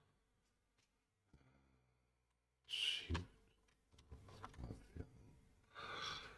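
Two breathy sighs from a man, about three seconds in and near the end, with quiet muttering between them and a faint click or two of a computer keyboard. He is frustrated at not finding the Ctrl key.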